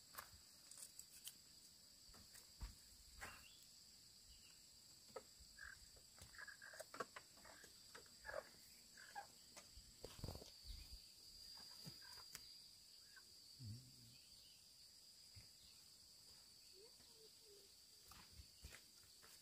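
Faint rural ambience: a steady high insect drone at two pitches, with scattered small clicks and knocks from hands working at dirt and stones, and footsteps on gravelly ground near the end.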